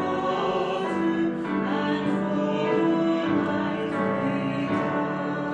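A closing church hymn: singing over instrumental accompaniment, with long held notes that change about once a second.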